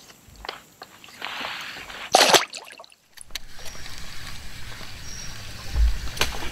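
A largemouth bass splashing into the river as it is released from a kayak, a short loud splash about two seconds in. After a break, water lapping and sloshing around the kayak, with a low rumble building near the end.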